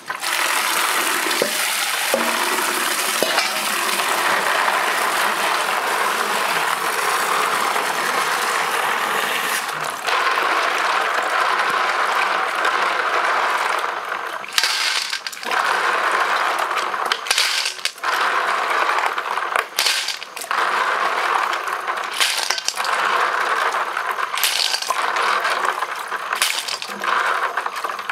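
Tap water running into a plastic basin while hands rub and scrub a mass of snails in it. The shells clatter and clink against each other amid the splashing, with more sharp clicks in the second half.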